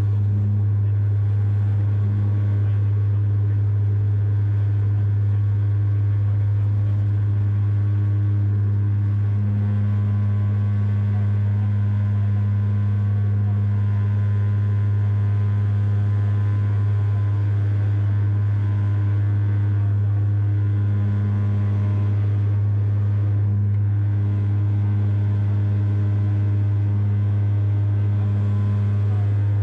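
Dash 8 Q400 turboprop engines and propellers running at climb power in flight: a steady, unchanging low drone with a strong hum and its overtones.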